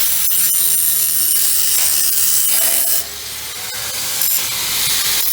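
Angle grinder with a metal cut-off wheel grinding through the folded seam of a steel 55-gallon drum lid. The grinding is loud and harsh, strongest in the highs. It drops in level about three seconds in, then builds back up.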